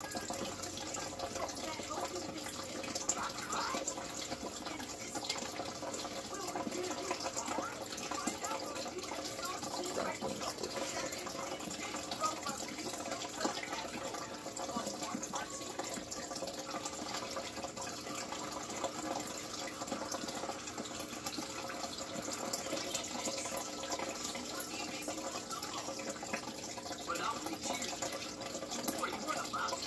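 Steady trickling and splashing of water from an aquarium filter's return stream pouring into the tank.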